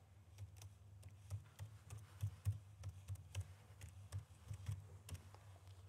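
Computer keyboard keys tapped in short irregular runs, faint, over a low steady hum.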